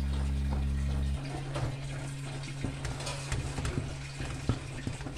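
Wet bubbling and stirring in a pot of brown ugali being worked with a wooden stick, with small scattered clicks and scrapes. Low held background-music notes stop about a second in.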